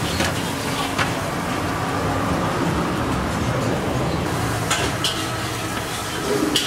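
Steady street traffic noise, with a few sharp clicks from bowls and hands working over a large aluminium cooking pot as spice pastes and green chillies are added to raw chicken.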